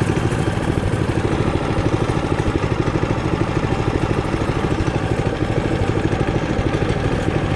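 Trailmaster Hurricane 200X mini bike's four-stroke single-cylinder engine running steadily, its firing pulses coming in a quick, even beat.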